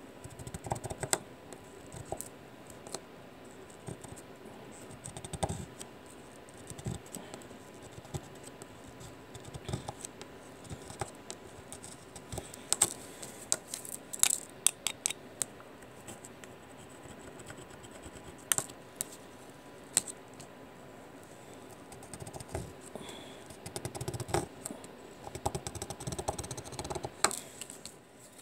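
Hot soldering iron tip scraping along a memory RAM stick's edge connector, the gold contact fingers snapping loose in irregular sharp clicks and scratches as the heat frees them from the board, with small gold flakes dropping onto cardboard.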